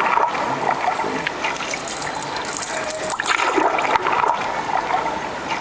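Steady rush of running water, like a flowing river.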